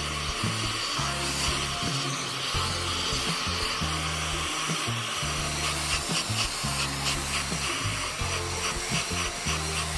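Hair dryer blowing a steady hiss of air over a circuit board, under background music with a low bass line; a fast ticking beat joins the music about six seconds in.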